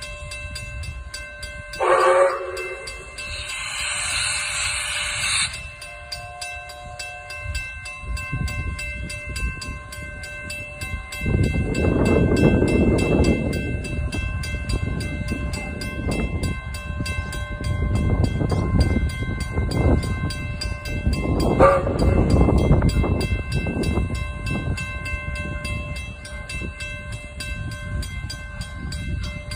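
Steam locomotive 621 departing: a short whistle blast about two seconds in, then a hiss of steam for a few seconds. From about a third of the way through, its exhaust chuffs come about once a second as it pulls away, with another short whistle about two-thirds through.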